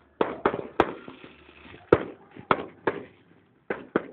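Fireworks going off: a rapid, irregular string of sharp bangs, about nine in four seconds, with the sharpest reports about a second and two seconds in.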